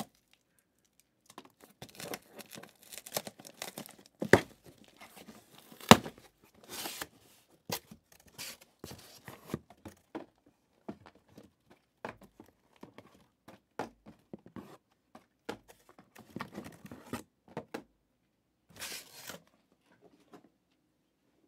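Cardboard and plastic packaging being torn and crinkled as a sealed case of trading-card boxes is opened, in irregular short bursts, with two sharp clicks, the loudest sounds, about four and six seconds in.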